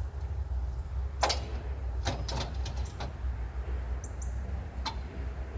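A series of sharp knocks and clanks, about five of them and the loudest about a second in, from a board being set and secured on a Norwood HD36v2 portable bandsaw mill, over a steady low hum.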